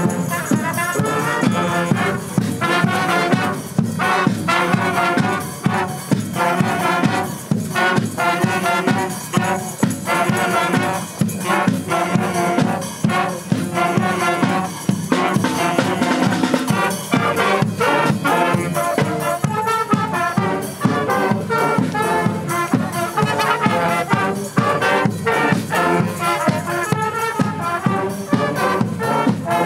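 Wind band playing a march: trumpets and trombones over drums keeping a steady beat.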